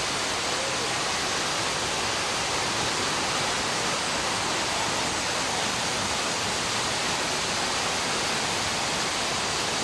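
Waterfall cascading over large boulders: a steady, even rush of water.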